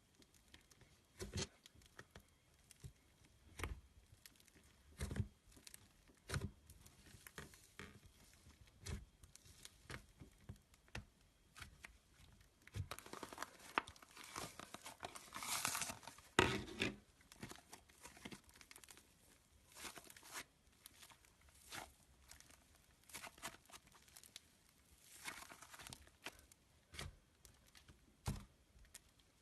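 Slime being squeezed and stretched by hand: scattered sticky clicks and pops, with a longer crackling, tearing stretch about halfway through.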